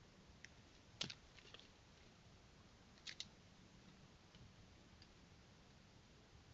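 Faint clicks and dry-leaf rustles from an eastern chipmunk moving down a tree trunk onto leaf litter, against near silence. There is a small cluster about a second in and a pair about three seconds in.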